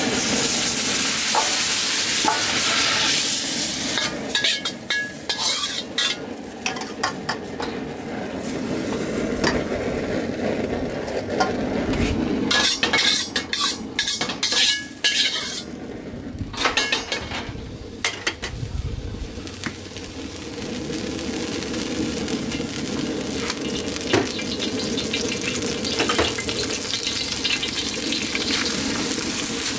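Food frying and sizzling in a hot seasoned wok, with scattered metal clinks and knocks of utensils and bowls through the middle part. Later the sizzling settles into a steady hiss as the chow mein noodles go into the hot oil near the end.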